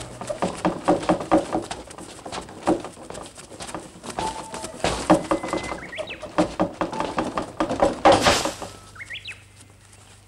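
Footsteps and a wooden cart rolling over dry ground: irregular knocks and creaks from the wheels and feet. There is a short loud rush of noise about eight seconds in, and a few rising bird chirps come around six and nine seconds.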